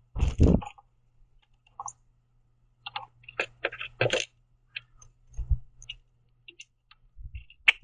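A red-winged blackbird's beak pecking and cracking sunflower seeds on a wooden platform feeder: scattered sharp clicks and taps, with a louder thump just after the start.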